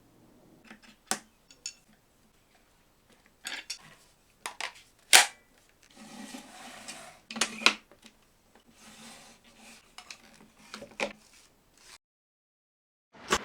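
Hand work on a bench as aluminium rails are laid onto plywood: scattered light clicks and knocks with brief scraping, and a sharp clack about five seconds in. The sound cuts out briefly just before the end, then there is a loud clatter.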